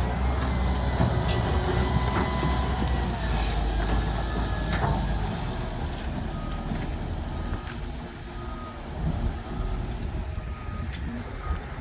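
Heavy work vehicle's engine running as it backs up, with its reversing alarm beeping. The engine is louder in the first half and eases off after about 8 seconds.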